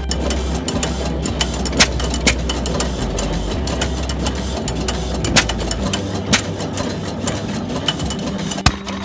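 1918 Fairbanks-Morse type Z stationary gas engine running, belt-driving a small piston water pump. There is a steady low rumble with sharp knocks and clacks at irregular intervals, about five in all.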